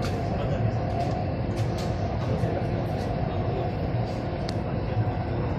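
Delhi Metro train running along an elevated track, heard from inside the car: a steady rumble with a faint whine and a few light clicks.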